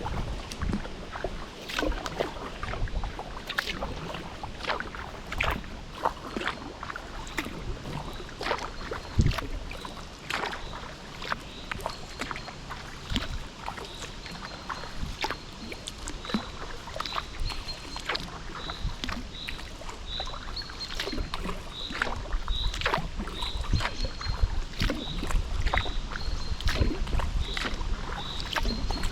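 Kayak paddle dipping and pulling through the water, with irregular splashes and drips. From about halfway on, a short high peep repeats roughly once a second, with low wind rumble on the microphone near the start and end.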